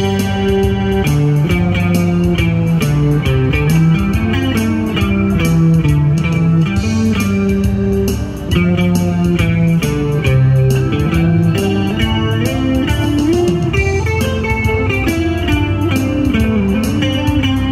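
Guitar music: a melody of quick plucked notes played over a low bass line, running on without pause.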